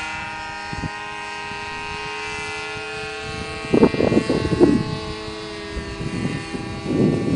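Model airplane's motor in flight, a steady high-pitched drone with many overtones, holding a nearly constant pitch. Rough bursts of noise come in about halfway through and again near the end.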